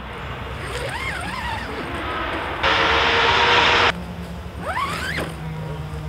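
Car engines revving and idling nearby: quick rises and falls in engine pitch over a low steady hum. About halfway through, a loud hiss starts suddenly and cuts off after about a second.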